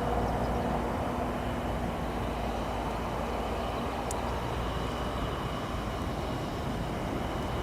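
Aircraft engine noise: a steady rush, with a few engine tones that fade out within the first second.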